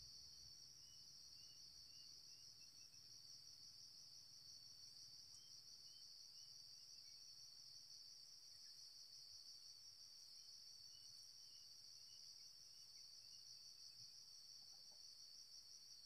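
Faint, steady high-pitched chirring of insects, like crickets, unchanged throughout. Three times, a faint run of short, high chirps sounds over it.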